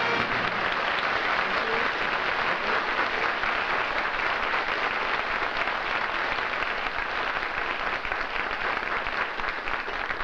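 Studio audience applauding, a dense steady clatter of many hands that eases off slightly near the end.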